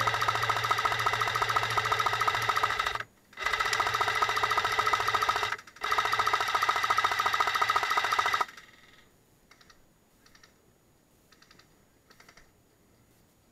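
Airsoft PKP light machine gun firing full-auto: a fast, even mechanical rattle in three long bursts with two short breaks, stopping suddenly about two-thirds of the way through. A few faint short rattles follow.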